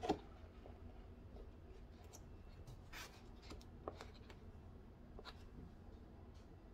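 Faint handling sounds of a rolled plastic chopping-mat sconce and paper being moved on a tabletop: a brief knock right at the start, then a few soft rustles and clicks.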